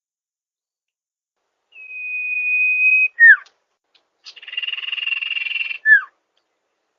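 Sirpu (sirdung) bird song from a lure recording: one long steady whistle, then a short sharp falling note, followed by a buzzy rattling trill lasting about a second and a half and another quick falling note.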